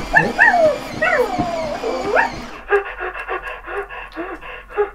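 Takara Tomy Present Pets robotic toy puppy making electronic puppy sounds inside its gift box: a run of whimpering yelps that rise and fall in pitch, then from about two and a half seconds in quick rhythmic panting, about five breaths a second, which the sisters call 'really out of breath'.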